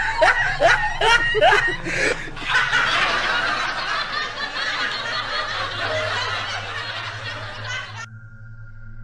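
Several people shrieking and laughing as they run off, then a rough hiss that slowly fades. About eight seconds in, the sound cuts off suddenly, leaving only a faint steady high tone.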